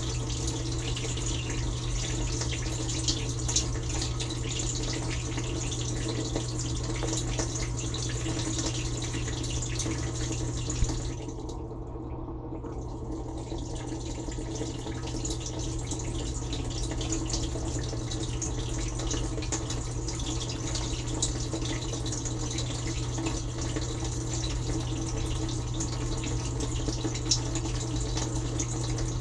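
Water spraying and splashing against dishes inside a running dishwasher, over the steady low hum of its wash pump. About eleven seconds in the spray briefly dies down, then builds back up over a couple of seconds.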